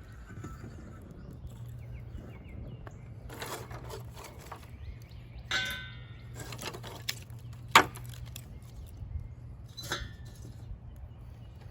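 Burning white oak crackling, with a few sharp pops (the loudest nearly eight seconds in) over a steady low hum.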